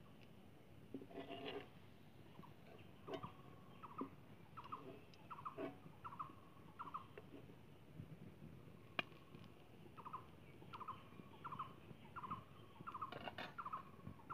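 Faint short chirping calls from an animal, repeated about twice a second, with a few light clicks of a metal spoon against the steel karahi and plate.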